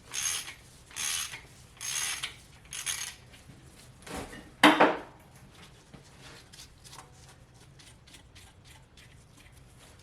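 Hand ratchet wrench being worked back and forth on an engine bolt, rasping on about four strokes a second or so apart. A loud metallic clank comes just before halfway, followed by a run of light, quick clicks.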